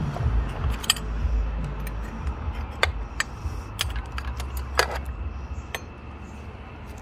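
Metal spoon stirring butter through steamed clams in a cast iron Dutch oven, clinking irregularly against the clam shells and the pot, about half a dozen sharp clicks. A low rumble runs underneath and eases near the end.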